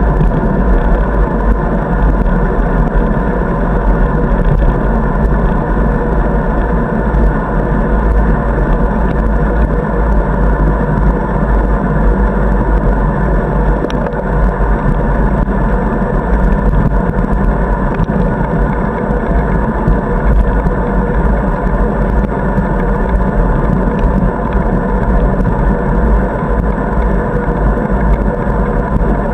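Steady, muffled wind and road rumble on a bicycle-mounted camera riding along a paved cycle path, strongest in the deep lows with little treble.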